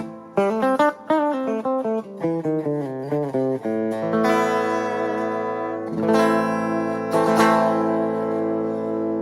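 Harley Benton ST80 FR HH electric guitar played with a clean tone: a quick run of single notes for about three seconds, then ringing chords, struck again twice.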